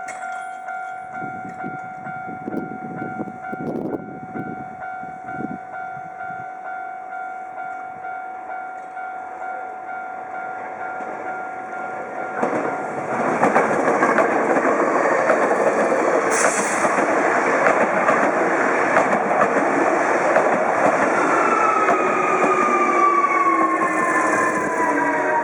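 A level crossing alarm rings in an even pulsing rhythm. About halfway through, a Senri Line electric commuter train comes through loudly, and near the end its motor whine falls steadily in pitch.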